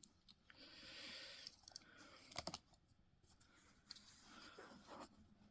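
Faint plastic clicks and scraping as the clips of a steering-wheel switch housing are levered up and the casing pried apart, with a soft scratching stretch near the start and a sharper double click about halfway through.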